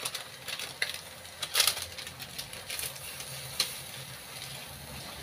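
Sliced bamboo shoots sizzling faintly in a wok, with scattered light clicks and taps at the pan, the loudest about a second and a half in, over a low steady hum.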